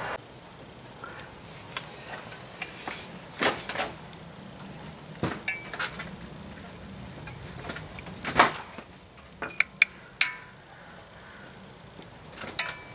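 Metal caulking gun laying window glazing compound along the glass: scattered clicks and clanks of the trigger and plunger rod, with a quick run of sharp clicks about ten seconds in.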